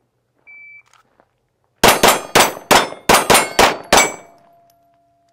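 Shot timer beeps once. About a second later a pistol fires eight shots in about two seconds at steel plate targets. Hits clang off the steel, and a plate rings on after the last shot.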